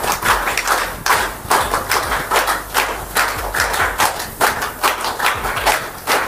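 A run of sharp claps, several a second and unevenly spaced.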